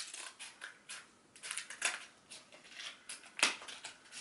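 Small yellow scissors cutting open a book's packaging wrapper: a run of irregular snips, the loudest about three and a half seconds in.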